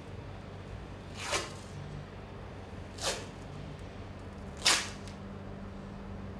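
White rigid strapping tape being pulled off the roll as it is wound around a wrist: three short peeling rips about a second and a half apart, the last the loudest.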